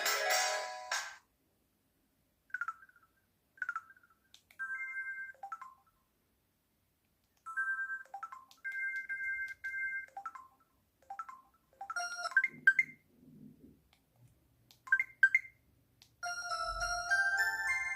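Samsung Anycall SPH-C2205 slide phone's built-in sounds: a ringtone melody cuts off about a second in, then a string of short electronic beeps and chirps, each a brief pitched tone with silence between. Near the end another chiming ringtone melody begins.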